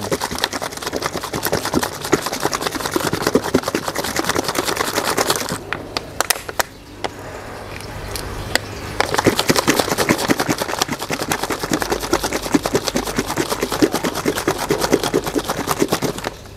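Raw eggs sloshing inside a capped plastic bottle shaken hard by hand to mix them. The shaking comes in two long bouts with a pause of about three seconds in the middle.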